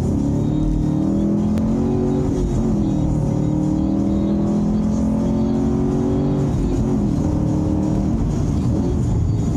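Chevrolet Camaro SS's V8 engine heard from inside the car, accelerating hard: the note climbs, drops at an upshift about two seconds in and climbs again, eases off about two-thirds of the way through, then picks up again near the end.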